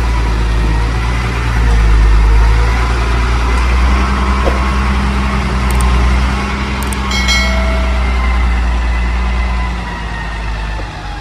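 Hino concrete mixer truck's diesel engine running at low revs as the truck creeps forward, a deep steady rumble. A short higher tone sounds about seven seconds in, and the sound fades near the end.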